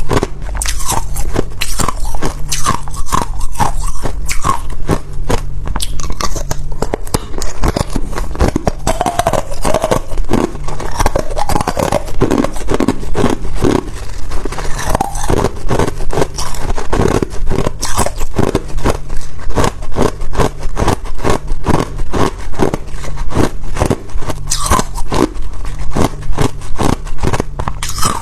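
A person biting and chewing ice, with dense, irregular crunches several times a second, over a low steady hum.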